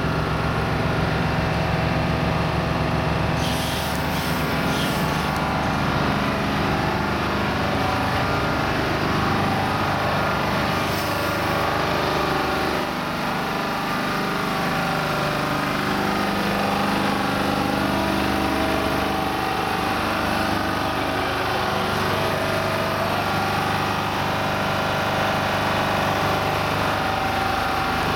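Heavy-haulage truck's diesel engine running steadily at low speed close by, its pitch shifting a little as it works. Short hisses break in a few seconds in and again near the middle.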